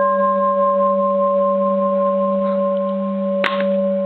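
Large Edo-period bronze Japanese Buddhist bell ringing on with a steady low hum and several clear higher tones. It is struck again with its striker about three and a half seconds in, which renews the ring. The long, even ring is that of an old bell that is not cracked.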